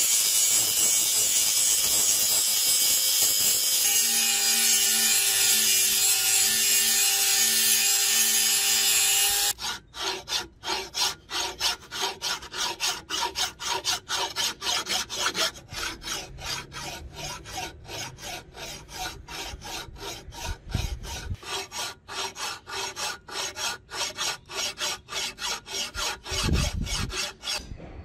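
Angle grinder with a flap disc grinding a forged iron spearhead: a steady, loud hiss, with a whine joining about four seconds in. It stops abruptly about nine and a half seconds in, and a flat hand file then rasps back and forth across the blade, about three strokes a second.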